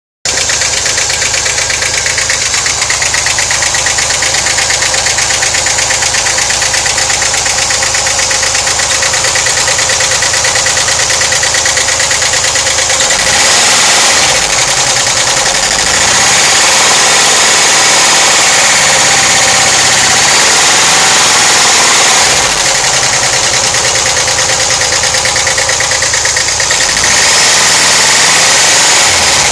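Volkswagen Vanagon's 2.1-litre water-cooled flat-four (WBX) engine idling with a loud, fast ticking from the left side of the engine compartment, and revved up and back down a few times: once about 13 seconds in, over several seconds in the middle, and again near the end. The owner suspects worn hydraulic lifters.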